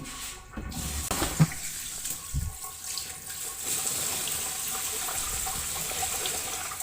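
Water running steadily from a tap, a thin, slow flow being collected to fill a washing machine by the bucket. A few soft knocks come in the first couple of seconds, and the flow becomes steadier about halfway through.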